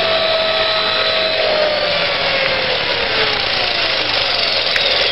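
Electric motors of a small RC model helicopter whining with a steady mechanical rush, the whine slowly falling in pitch as the motors and rotors slow down.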